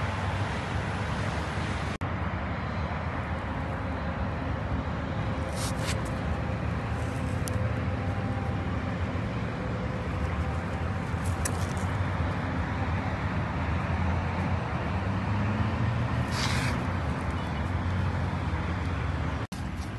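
Steady low rumble of road traffic, with a few brief high hisses over it.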